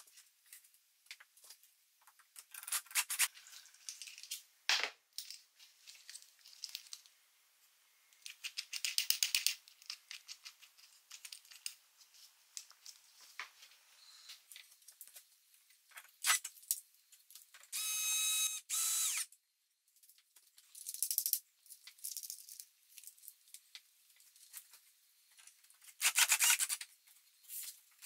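Cordless drill-driver motor running in one short burst of about a second, cutting off sharply, among scattered clicks, taps and rattles of screws and wooden parts being handled and fitted.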